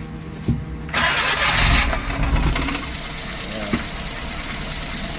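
Suzuki DA63T mini truck's 660 cc three-cylinder petrol engine being started: a click, then about a second in it cranks and catches, runs loudly for a moment and settles into steady running. This is a test start for a hard-starting complaint, after the valve clearances, which the mechanic took to be too tight and causing low compression, were set and new spark plugs fitted.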